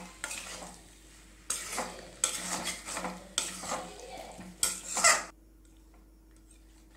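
Metal spatula scraping and stirring potatoes through a thick spice masala in a kadai, in repeated strokes against the pan with a light sizzle as the potatoes are sautéed. The stirring stops about five seconds in.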